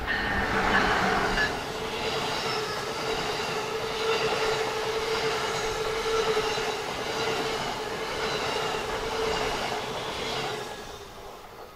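Amtrak ACS-64 electric locomotive and its Amfleet coaches passing through a station: a steady rolling rumble of wheels on rail, with a steady mid-pitched hum and several high ringing tones. The sound fades away near the end as the last car clears.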